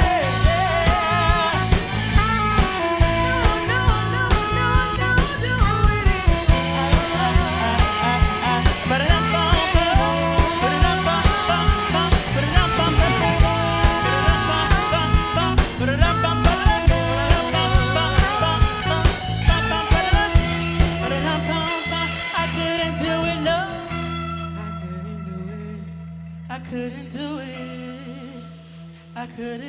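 Live band of drum kit, bass and guitar with singing, playing a pop-gospel-jazz fusion number. The drums drop out a little past two-thirds of the way through, and the band holds a low sustained chord that fades away as the song ends.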